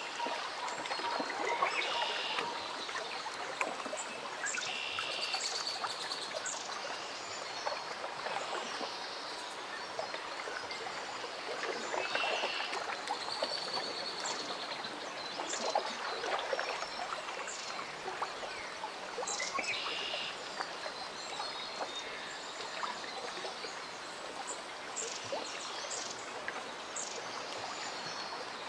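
Water lapping and trickling steadily along a lakeshore, with birds chirping in short calls now and then.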